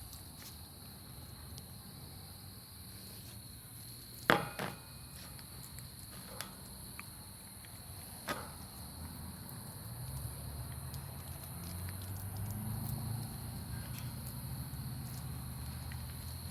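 Night insects, crickets, chirping steadily, with one sharp knock about four seconds in and two smaller clicks a few seconds later. A low hum comes up from about ten seconds on.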